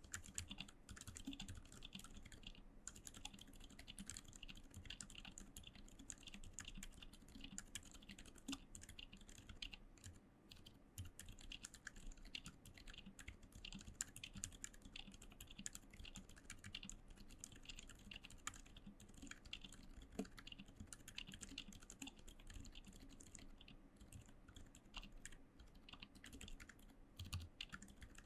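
Continuous fast typing on a Maja mechanical keyboard with lubed, filmed Gazzew U4 Boba silent tactile switches and Infinikey keycaps: a dense stream of quiet, muted keystrokes.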